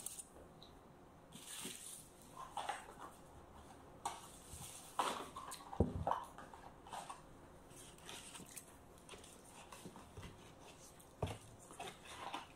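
Quiet meal sounds: scattered rustles, taps and clicks as hands pick fried chicken and spaghetti out of cardboard takeaway boxes, with one sharper thump about halfway through.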